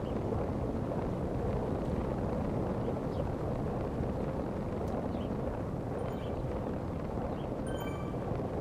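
Steady rush of wind and road noise from a bicycle ridden at speed on the road, with a brief high chirp near the end.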